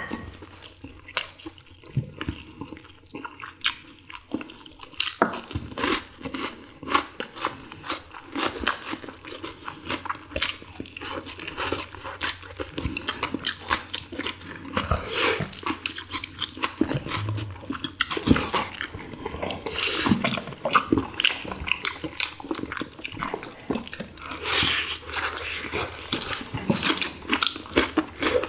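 Close-up mouth sounds of several people eating boiled chicken: chewing and biting, with many short wet clicks and smacks.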